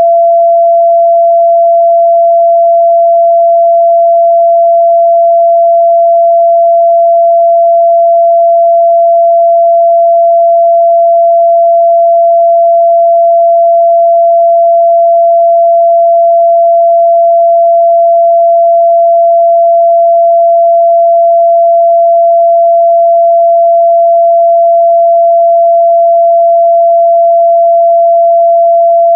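A steady, loud 678 Hz pure sine-wave test tone, one unchanging pitch held without a break.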